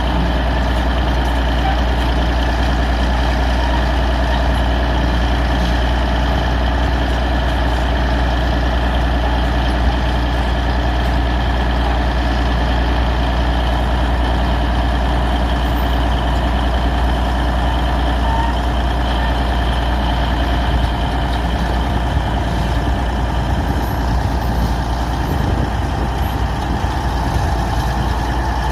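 Bulldozer's diesel engine running steadily and loudly, without a break or change in pitch.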